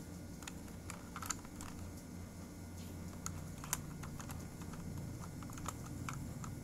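Irregular light plastic clicks and taps as toy figures are handled and set into a toy car, a few sharper than the rest, over a low steady hum.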